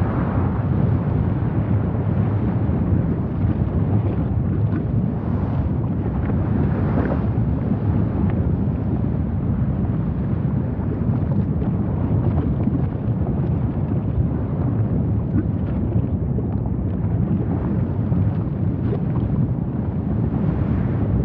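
Steady deep rumble of a volcanic eruption, with faint scattered crackles.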